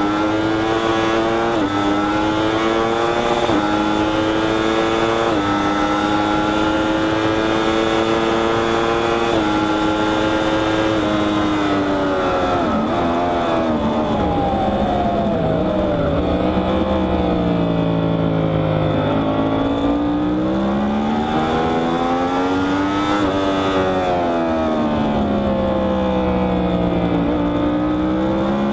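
Yamaha R1's crossplane inline-four engine heard from the rider's seat, accelerating hard through the gears with several quick upshifts up to top speed. About twelve seconds in, the revs fall with short downshift blips under braking; the engine then pulls again briefly before slowing once more, with wind noise throughout.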